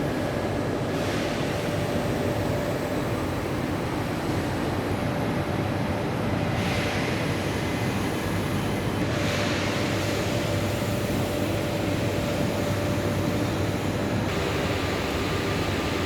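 Steady rush of rainwater flowing through a drain during rain, its hiss brightening a few times.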